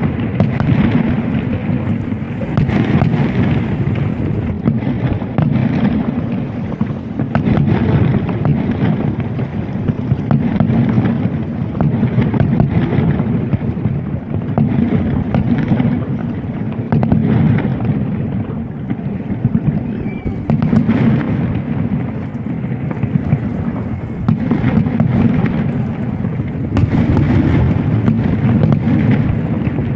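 Fireworks display going off in quick succession: a dense run of booms and crackling with no pause.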